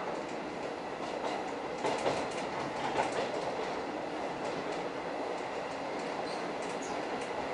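Suburban electric train running along the track: a steady rumble with the wheels clicking over the rail joints and a few louder knocks around two and three seconds in.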